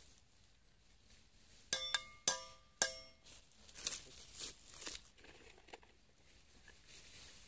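A small metal latex spout being knocked into a rubber tree's bark below the tapping cut: four sharp, ringing metallic taps in about a second, followed by softer clicks and scraping.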